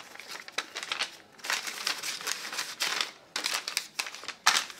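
Paper banknotes rustling and flicking as they are counted by hand: a run of short crisp paper sounds, busiest in the middle, with one sharp flick near the end.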